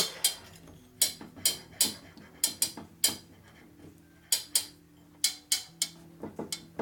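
Sharp metallic clicks and taps, about a dozen, unevenly spaced, as a rocker arm on a 1950 Harley-Davidson Panhead cylinder head is rocked and turned by hand on its shaft. It is turning freely, with no grinding.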